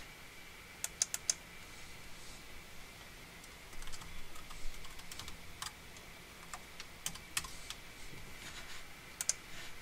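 Computer keyboard being typed on, keystrokes coming in short scattered runs with pauses between, over a faint steady high-pitched whine.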